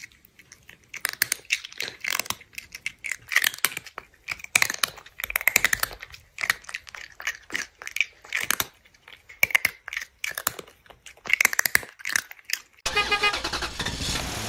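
Crunchy chewing and munching in quick, irregular bursts with short pauses between, the sound of eating. About 13 seconds in, electronic music starts.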